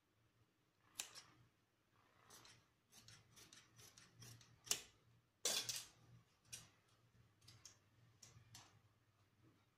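Tailor's scissors cutting through cloth in a series of short, crisp snips, the loudest and longest about halfway through.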